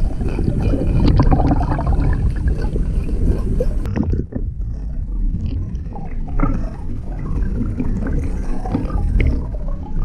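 Matrix Mullet topwater plug heard from underwater as it is twitched across the surface: a water rush and gurgle with many small clicks from its rattles. About four seconds in the sound turns duller, the higher sizzle dropping away and leaving the low rumble and fainter clicks.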